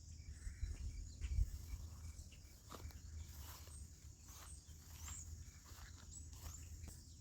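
Outdoor ambience: insects chirring steadily in the background, with low wind rumble on the microphone and scattered faint rustles and ticks.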